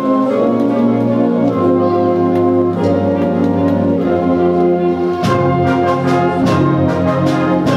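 A high school concert band playing live, with brass carrying sustained chords. About five seconds in the chord changes and a run of percussion strikes begins.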